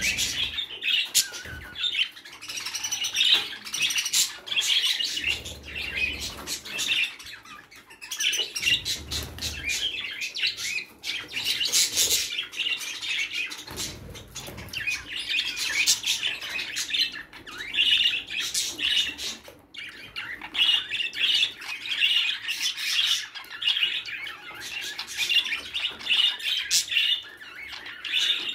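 Budgerigars chattering: a continuous stream of fast, scratchy chirps and warbles with short pauses.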